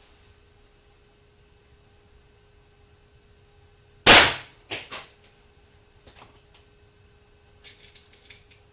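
A .177 spring-piston air rifle firing once about four seconds in, a sharp crack with a brief ring, followed by two quieter knocks. Faint clicks follow later.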